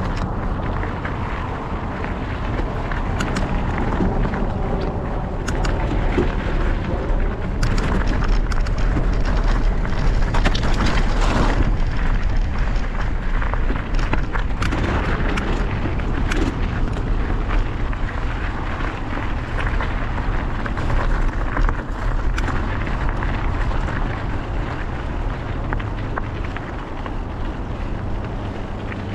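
Wind buffeting the microphone of a camera on a moving mountain bike, with a steady low rumble, tyres crunching over loose gravel and rocks, and many short clicks and rattles from the bike; busiest and loudest a third of the way in.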